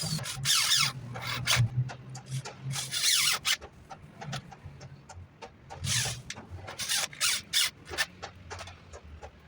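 Wood being scraped or rubbed by hand in a few short strokes, with scattered light knocks and clicks of work on wood.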